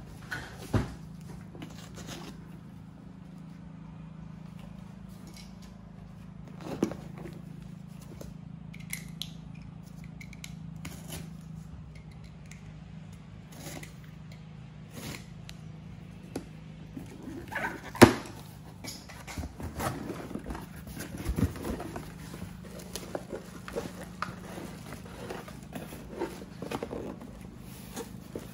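Cardboard box being handled and opened by hand: scattered scrapes, taps and rustles of cardboard. Near the end comes the crinkle of a plastic bag, and there is a sharp knock about two-thirds of the way in. A steady low hum runs underneath.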